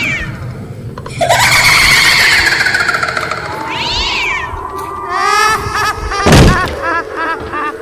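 Cat-like yowling: long drawn-out calls that slide down in pitch. About six seconds in comes a sharp loud burst, then a quick run of short repeated calls.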